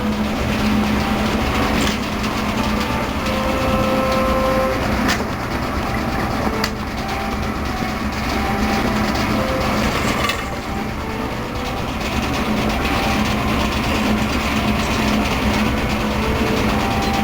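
Steam tractor running steadily, belted to a plank sawmill, with a constant low hum and a couple of sharp clanks.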